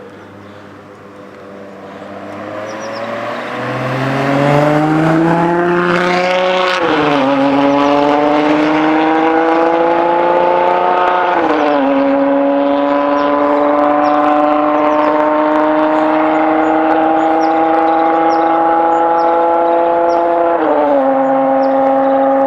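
Ferrari 599 GTO's V12 engine accelerating hard through the gears: it grows louder over the first few seconds, then its note climbs steadily and drops sharply at three upshifts, each gear pulling longer than the last.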